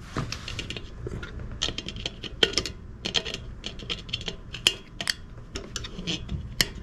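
Irregular small metallic clicks and scrapes as a stiff hose clamp is worked onto a coolant hose with hand tools.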